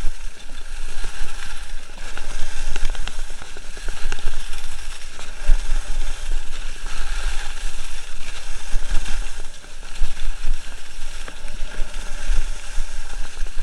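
Wind buffeting the microphone of a camera carried by a skier on the move, over the hiss and scrape of skis on packed snow.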